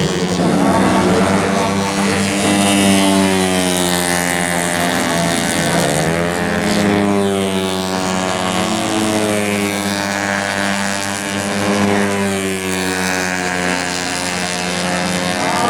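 Several tuned 130 cc automatic scooter race engines running hard on the circuit. Their pitch keeps rising and falling, with a sharp drop and climb about six seconds in as bikes pass and change speed.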